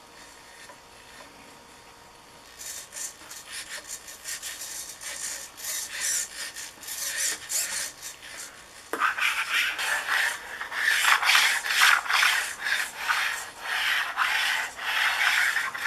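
Pan-tilt micro servos of a Pixy (CMUcam5) camera buzzing in rapid, irregular short bursts as the camera tracks a moving object. About nine seconds in a plastic bottle cap taps down on the table, and the sound grows louder with rubbing as the cap is pushed along the tabletop.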